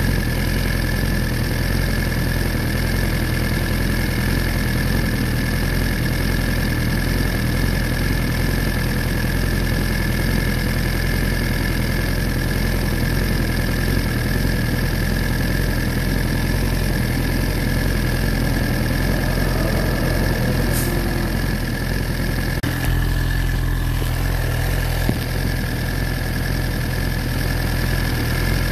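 Motorcycle engine idling steadily, its pitch not rising or falling.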